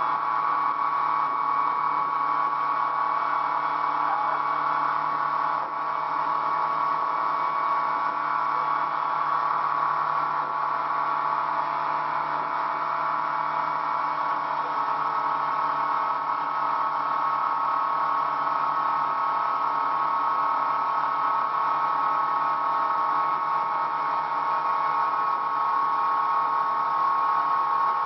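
Motorboat engine running steadily at towing speed, a constant drone with water rushing past.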